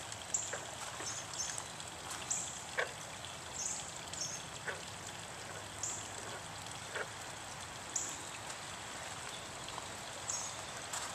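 Garden pond ambience: water trickling steadily. A short high chirp repeats about every two seconds, with a few soft plinks in between.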